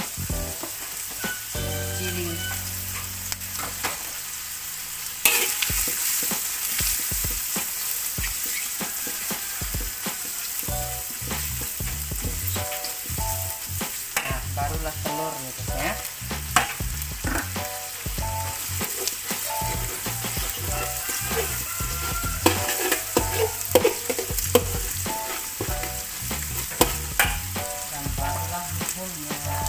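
Strips of beef ham and chillies sizzling in oil in a metal wok while a spatula stirs and scrapes them, with scattered sharp clacks of the spatula against the wok. The sizzle gets louder about five seconds in.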